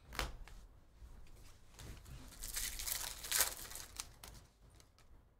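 2023 Topps Stadium Club baseball cards being flipped through by hand, card stock sliding and rustling against card stock, louder for about a second midway through.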